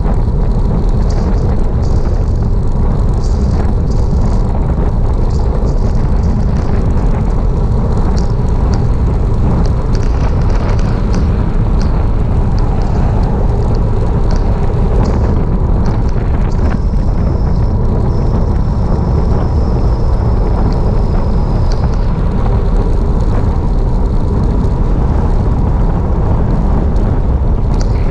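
Heavy wind noise buffeting the camera's microphone on a fast bicycle descent: a loud, steady rumble. Faint high ticks run through it, and a thin high whine holds for a few seconds past the middle.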